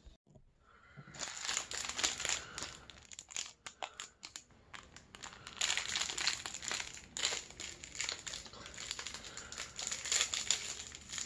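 Crinkly plastic snack wrapper being twisted and pulled open by hand: dense, irregular crackling rustles that start about a second in.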